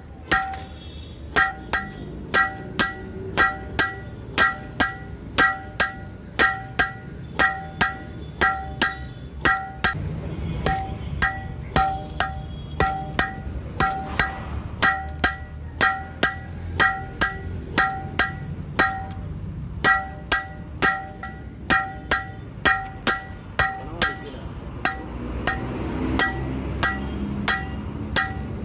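Hand hammer forging a red-hot blade of leaf-spring steel on a steel anvil block: a steady rhythm of about one and a half blows a second, each leaving a bright metallic ring.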